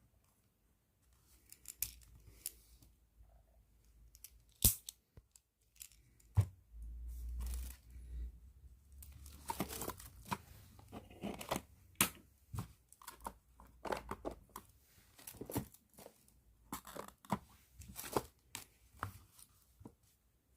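Plastic bag crinkling and rustling in irregular bursts as a pen is handled, with scattered sharp clicks and two louder knocks about four and a half and six and a half seconds in.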